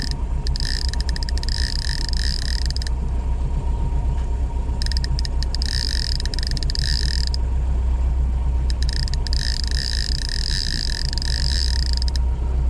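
Fishing reel's drag buzzing as a hooked fish strips line off, in three runs of two to three seconds each, over a steady low rumble from the boat.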